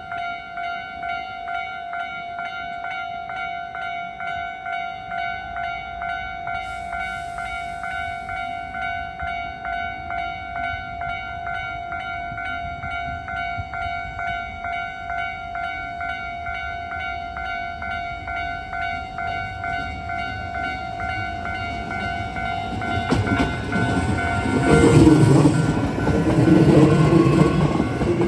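A railway level-crossing warning bell ringing in an even, repeating ding. Near the end a Hankyu 7300 series train runs past loudly, its wheels clattering in a regular rhythm.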